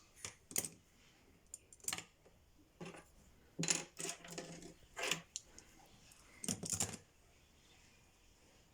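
Makeup brushes being put into a dishwasher basket: irregular light clicks and clattering knocks of handles against the rack, with a busier run of several knocks in the middle.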